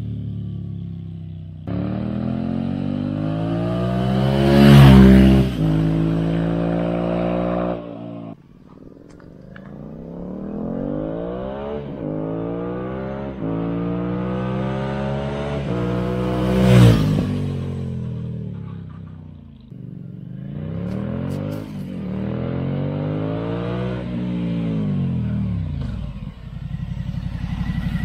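2020 Suzuki V-Strom 1050XT's V-twin engine through a Dominator ST round slip-on exhaust with no dB killer, riding past twice. Each pass peaks loudly as the bike goes by, with the pitch dropping. Near the end the bike comes by again more slowly, at lower revs.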